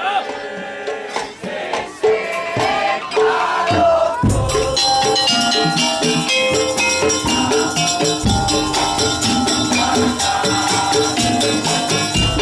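Madurese daul (tong-tong) street band playing: a sliding melodic line over scattered strikes, then about four seconds in the full percussion ensemble comes in with a steady beat, repeating pitched metallic notes and jingling shakers.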